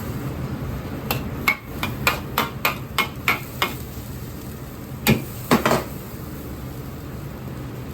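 A metal ladle knocking against a wok: a quick run of about eight sharp, ringing knocks, roughly three a second, then two louder knocks about half a second apart, over the steady low rumble of the kitchen.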